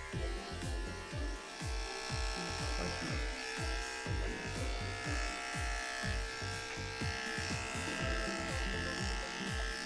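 Electric pet grooming clippers buzzing steadily as they shave a cat's coat, under background music with a steady low beat.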